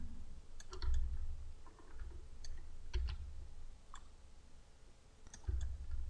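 Scattered, irregular clicks of a computer mouse and keys, with a few dull low thumps.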